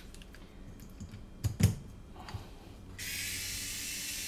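Small clicks and knocks as a handheld electric screwdriver is handled and fitted onto a nylon fastener. About three seconds in, its motor starts with a steady high whir, driving the fastener.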